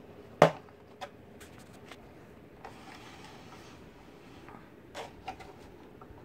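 Handling noises of a homemade model helicopter body shell being worked off its frame: one sharp snap about half a second in, a few lighter clicks, and a stretch of rubbing and sliding in the middle.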